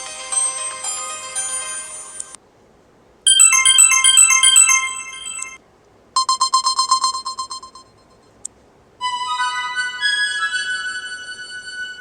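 Asus ZenFone 2 Laser ringtones played one after another: short electronic melodies separated by brief silences. One ends about two seconds in, a bright chiming tune follows, then a fast pulsing repeated tone, and a fourth melody starts about three seconds before the end.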